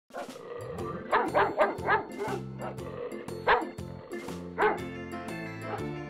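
A dog barking over background music: four quick barks a little over a second in, then two single barks.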